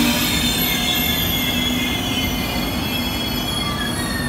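Train of InterCity passenger coaches rolling past along the platform track: a steady rumble of steel wheels on rail with a few thin high tones over it, slowly getting quieter.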